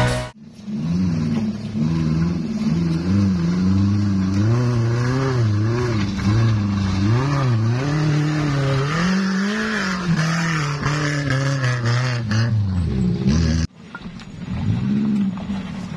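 Daihatsu Gran Max pickup's engine labouring up a slippery mud slope, its revs rising and falling again and again as the driver works the throttle for grip. The sound cuts off abruptly near the end, and a quieter engine note rises again after it.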